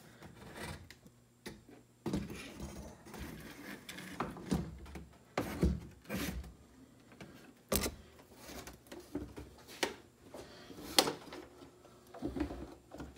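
Irregular knocks, clunks and shuffling of a large flat-screen TV's sheet-metal chassis and backlight tray being handled and laid down, with the loudest knock near the end.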